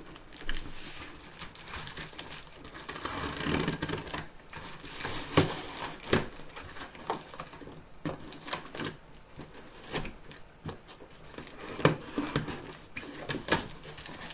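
A large cardboard shipping box being opened by hand: packing straps cut and pulled away, with cardboard rustling and scraping. Sharp clicks and knocks come throughout, the loudest about five and twelve seconds in.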